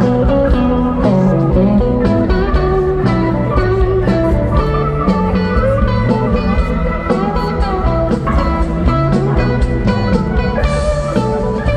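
Live rock band playing an instrumental passage: electric guitars over bass and drums, with a steady beat of drum hits.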